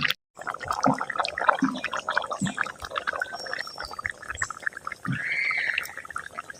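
Wet eating sounds: rice and egg curry chewed and smacked in the mouth, a dense run of short, clicky strokes, with a brief high-pitched sound about five seconds in.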